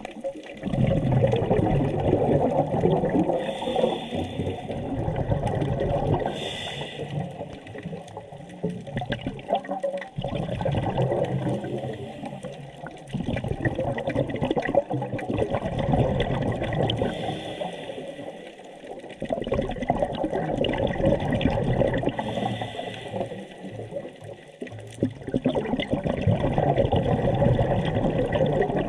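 Scuba diver breathing through a regulator underwater. Long bursts of exhaled bubbles come every several seconds, with short hisses from the regulator between them.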